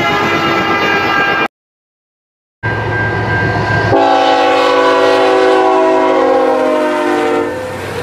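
Multi-note train air horn blasts. One blast, sharp at its start, ends about a second and a half in. After a short gap comes a train's rumble with a high steady tone, then about four seconds in a passing freight locomotive sounds one long chord-horn blast that tails off near the end.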